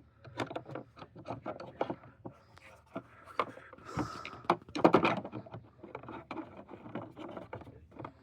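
Hand tools knocking and clattering as they are shifted and pushed into place in a tool box: a quick irregular run of clicks and knocks, with a louder cluster about five seconds in.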